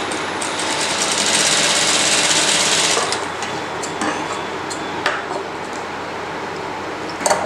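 Industrial single-needle sewing machine stitching a dart in blouse fabric, running at an even rapid pace for about three seconds, then stopping suddenly. Scissors then snip a few times, trimming the thread, with the sharpest snip near the end.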